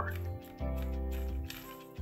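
Background music of held chords, with a new chord coming in about half a second in.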